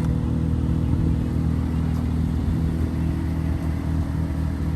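Infiniti G35's VQ35DE V6 engine idling steadily, a low even rumble.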